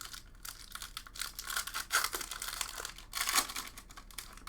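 Foil wrapper of a Magic: The Gathering booster pack crinkling and tearing as it is pulled open by hand, in irregular crackly bursts, loudest about two seconds in and again past three seconds.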